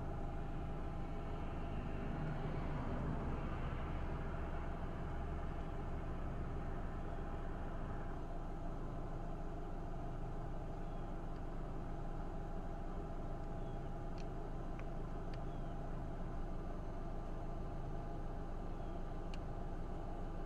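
Steady engine rumble with a car passing on the road, loudest about two to five seconds in; a few faint clicks come later.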